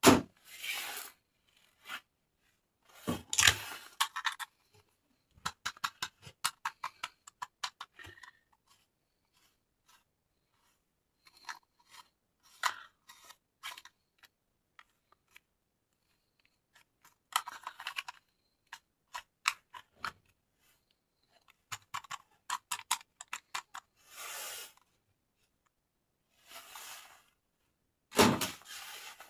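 Toy packaging being handled and opened by hand: short bursts of rustling and tearing, with runs of small, quick clicks and taps in between.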